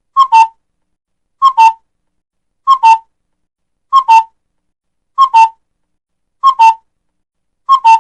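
A bird's two-note whistled call, a higher note dropping to a slightly lower one, repeated exactly alike at an even pace seven times, about once every second and a quarter.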